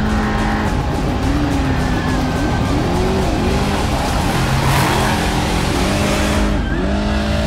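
Off-road race truck engine revving hard, its pitch repeatedly rising and falling as the throttle goes on and off, over background music.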